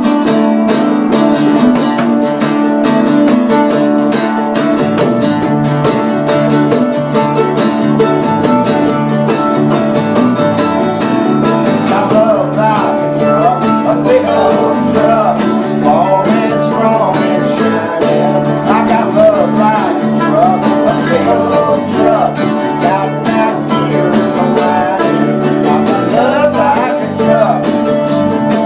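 Unamplified acoustic country band playing a song: strummed acoustic guitar, mandolin, acoustic bass guitar through a small amp, and a headed tambourine struck with a stick keeping a steady beat. A man's lead vocal comes in about twelve seconds in.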